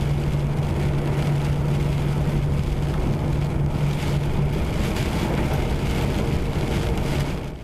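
A vehicle driving at highway speed on a wet road: a steady engine drone with an even rush of tyre and spray noise.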